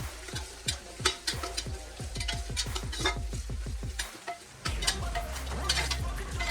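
A spoon or ladle stirring and scraping against a pan while chicken curry sizzles and fries, with repeated short scraping strokes. Under it, a quick run of falling bass notes speeds up and breaks off about four seconds in.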